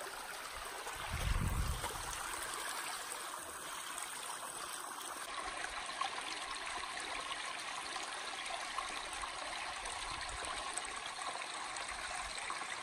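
Shallow rocky creek trickling over stones: a steady babble of running water. There is a brief low rumble about a second in.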